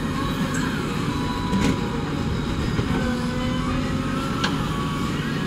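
JCB 3DX backhoe loader's diesel engine running under load while the backhoe arm works, with a hydraulic whine that rises and falls. Two short knocks, about a second and a half in and near the end, as the bucket swings and dumps soil.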